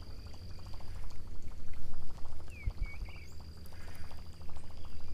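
Water sloshing and lapping beside a bass boat over a low steady rumble, with a thin steady high whine and a brief chirp about halfway through.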